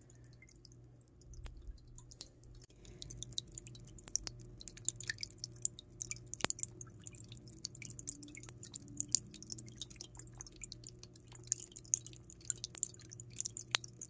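Small tabletop water fountain trickling: water spills from the bowl beneath the ball and splashes onto the pebbles in many quick, irregular drips and splashes. A faint steady low hum runs underneath.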